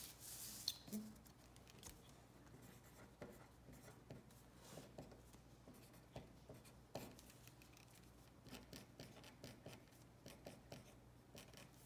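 Faint handwriting: irregular light scratches and taps of a writing tip on a surface.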